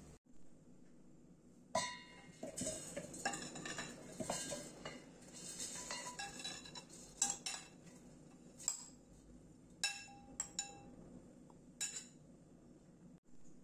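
A metal spoon scraping and clinking against a glass bowl and a steel bowl as grated coconut is scooped from one to the other. A dense run of scrapes and taps starts about two seconds in, followed by five separate ringing clinks.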